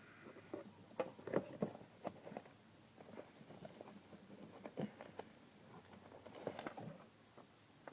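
Irregular light clicks and taps of small parts being handled, in bunches about a second in and again a little after six seconds.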